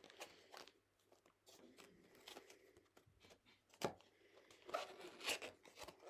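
Faint crinkling and rustling of trading-card packs being handled, with a sharp click about four seconds in.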